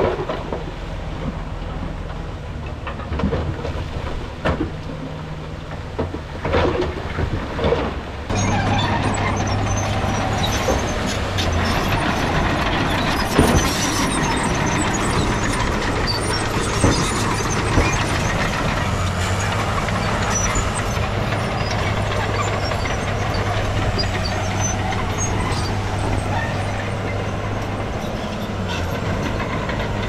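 Heavy earthmoving machinery at work: a steady diesel engine hum with metal clanks and rattles, suddenly louder about eight seconds in.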